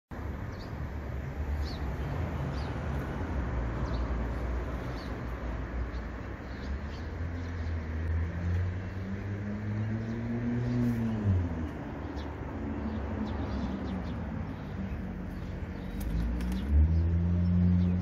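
Low engine hum of passing traffic that rises and falls in pitch, then settles into a steadier, louder hum near the end. Faint short bird chirps come over the first few seconds.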